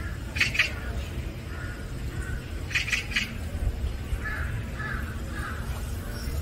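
A bird calling twice, each call a quick run of three or four short notes, with fainter notes a few seconds in, over steady outdoor background noise.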